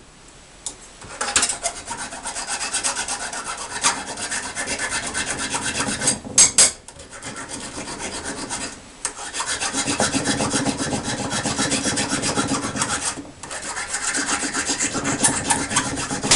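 Metal being scoured by hand with an abrasive: quick, repeated rasping strokes in several bouts with short breaks, cleaning the surface bright before sweat soldering.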